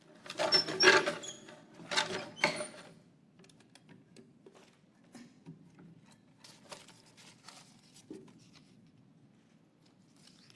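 Wooden lottery drum being turned, its contents clattering and tumbling for about three seconds. This is followed by scattered lighter clicks and taps as the drum is opened and a number is drawn.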